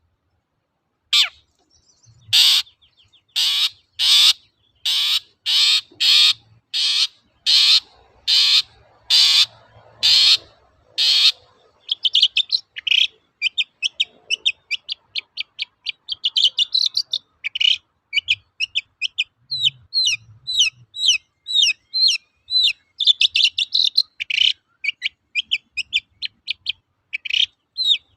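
Long-tailed shrike (cendet) calling: a string of harsh, rasping notes, one or two a second, then from about halfway a fast run of short, sharp chattering notes.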